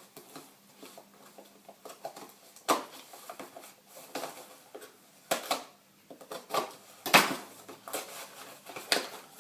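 Packaging of a BMX stem being opened and handled: irregular rustling with sharp clicks and knocks, the loudest clatter late on.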